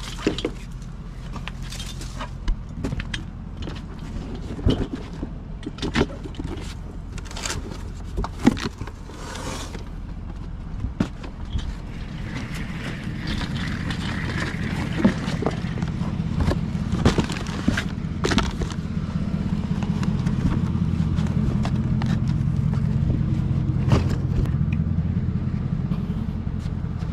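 A car engine running with a steady low rumble that grows louder through the second half, as the vehicle gets under way. Scattered knocks and scrapes sound over it, mostly in the first half.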